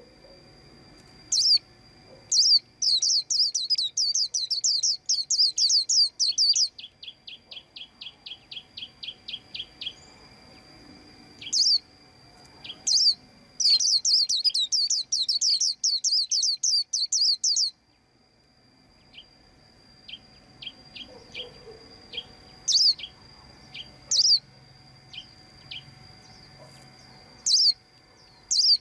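White-eye calling: sharp, high chirps, some single and some in rapid trilling runs lasting three to four seconds, with a run of softer, quicker ticks between them.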